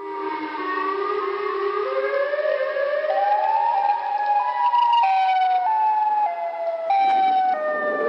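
A loud, siren-like wailing tone over a hiss. It rises slowly in pitch for about four and a half seconds, then drops in a few abrupt steps.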